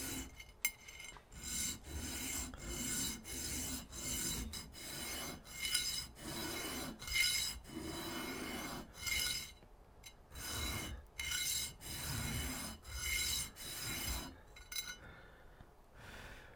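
Sanding the side of a brass ring flat by hand: about one back-and-forth rasping stroke a second, stopping near the end.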